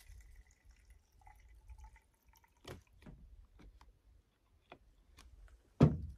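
Scattered light clicks and taps from a chainsaw being handled while it is fuelled, with one louder knock near the end.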